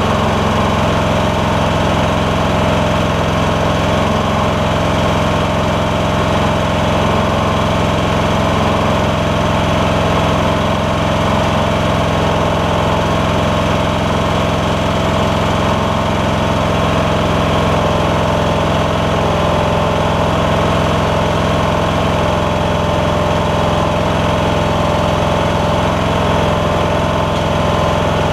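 Troy-Bilt Bronco lawn tractor's Kohler Courage engine running steadily at an even speed.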